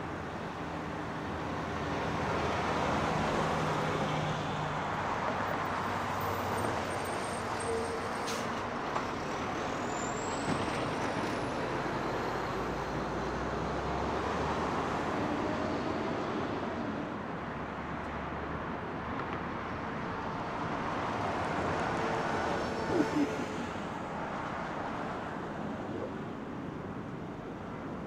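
Airbus A350-941 on final approach, its Rolls-Royce Trent XWB engines making a steady rushing jet noise mixed with background traffic. About 23 seconds in there are two sharp knocks.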